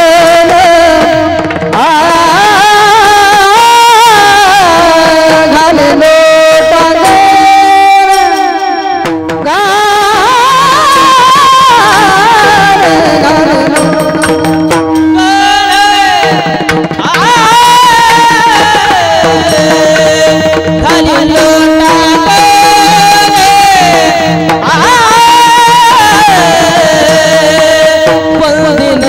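A singer performing a Marathi devotional abhang, with long, ornamented melodic phrases that glide between held notes over a steady drone and tabla accompaniment.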